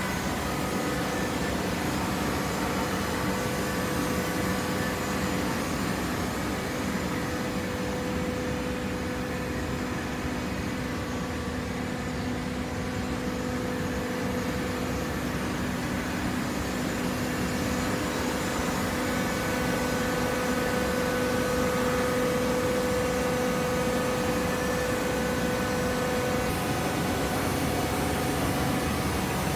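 Steady machine hum of a running horizontal hydraulic baling press, with a steady whine at two pitches.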